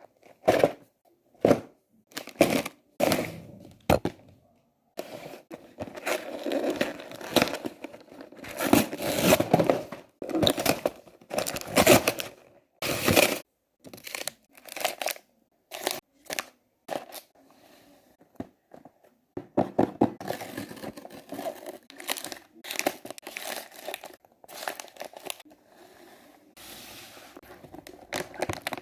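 Plastic snack packaging crinkling and rustling as it is handled and sorted, in irregular bursts with short pauses.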